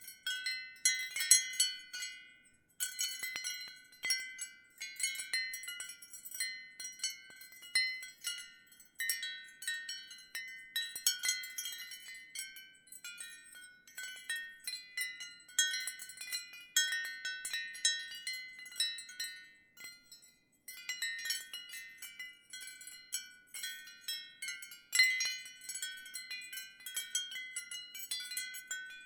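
Ceramic wind chimes jingling irregularly, clusters of clear high ringing notes that overlap and fade quickly, with brief lulls about two seconds in and about twenty seconds in.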